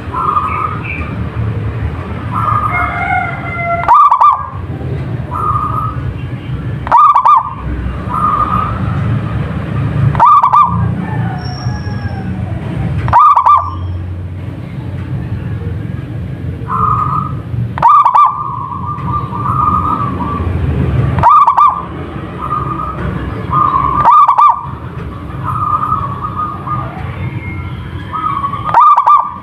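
Zebra dove (perkutut) cooing its song, a loud phrase repeated roughly every three seconds over a steady low rumble.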